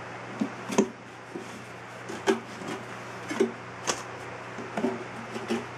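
Packets of 7.62x54R cartridges being pulled one by one out of a cut-open steel surplus ammo tin and set down: irregular knocks and clicks, several with a brief metallic ring.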